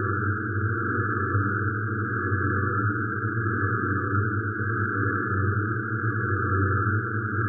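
DIN Is Noise software synthesizer sounding a mass of 62 drones at once, with the voice set to noise. The result is a steady texture in two noise bands: a low rumbling band with a few held tones in it, and a higher hiss.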